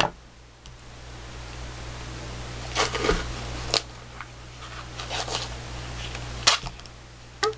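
Off-camera handling of a plastic icing bag of whipped cream clay: a few sharp clicks and crinkles over a faint steady hiss.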